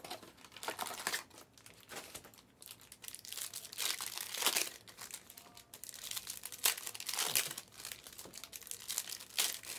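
Plastic shrink wrap being torn and crumpled off sealed trading-card hobby boxes, an irregular run of crackling and crinkling with louder rips now and then.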